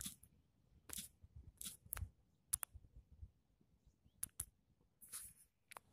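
Faint, irregular clicks and brief rustling ticks, about a dozen scattered unevenly, over a faint low rumble.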